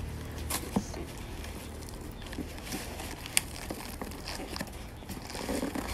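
Hands tearing and picking at the corner of a tough corrugated cardboard courier box: faint scattered crackles and scrapes, with one sharp click about three and a half seconds in.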